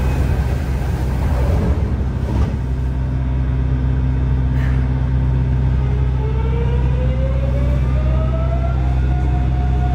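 Mitsubishi GTO-VVVF traction inverter and motors of a 3000A series subway car, heard from inside the car. A steady low running hum, with a short burst of noise about two seconds in. About six seconds in, the inverter's whine rises in pitch in several tones at once and levels off near the end, as the train takes power and accelerates.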